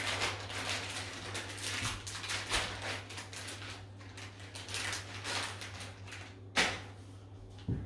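Irregular rustling and shuffling as someone moves about on a fabric dust sheet, with one sharp click about six and a half seconds in.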